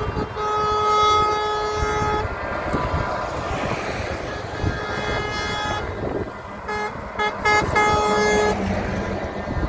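Show trucks driving past in a convoy, sounding their air horns: a long blast, another about five seconds in, then a quick string of short toots and a last blast near the end, over the engine and tyre noise of the passing trucks.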